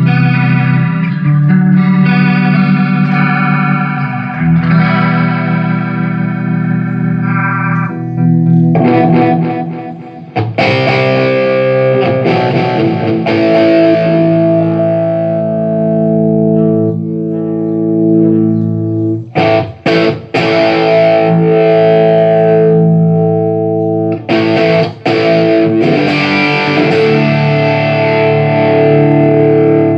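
Electric guitar played through a Line 6 Flextone III modelling amp on a sound test after its pots and switches were replaced: chords and held notes ringing out, with a short dip about ten seconds in and a few sudden brief stops in the second half.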